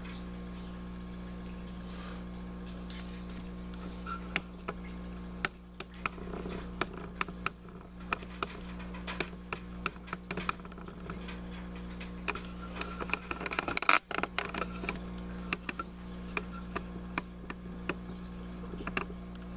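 Steady hum from aquarium equipment with faint water sounds, broken by irregular clicks and knocks from the camcorder being handled and panned on a stiff tripod, in a flurry about fourteen seconds in.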